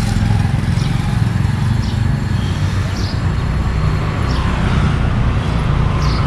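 Steady low rumble of street traffic, with a few faint short high-pitched sounds now and then.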